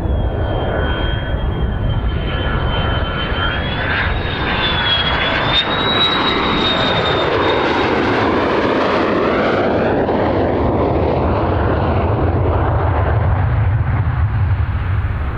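Lockheed F-16C fighter jet engine on landing approach: a high whine over a deep steady rumble. The noise swells and sweeps down and back up in pitch as the jet passes close, about eight seconds in, and the whine fades out.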